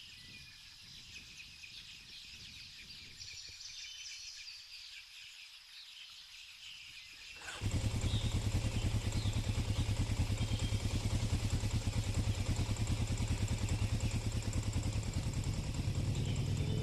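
Birds chirping faintly, then, about seven seconds in, a small motorcycle engine suddenly starts running loud and steady with a fast, even pulse. Near the end its pitch begins to rise as the engine revs up.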